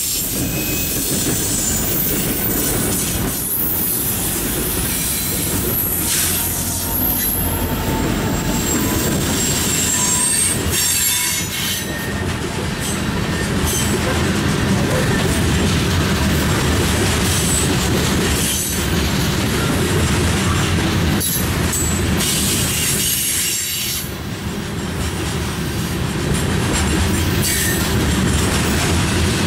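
Loaded freight train of covered grain hopper cars rolling past close by: a steady rumble of steel wheels on rail, with clacking over rail joints and high wheel squeal that comes and goes.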